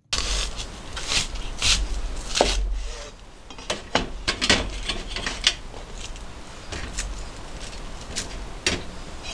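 Kitchen food-prep sounds: irregular sharp knocks and clicks with some rubbing, from onion slices and a carrot being handled on a steel tray with a wire rack and a kitchen knife on a plastic cutting board, over a low steady hum.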